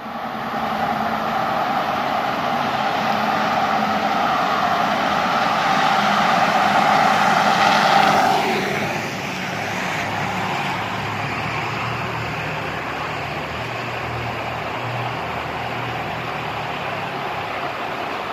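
Road traffic echoing out of a highway tunnel. A vehicle's tyre and engine noise builds to a peak about eight seconds in, then drops in pitch and fades. A lower engine rumble from a vehicle coming through the tunnel carries on after it.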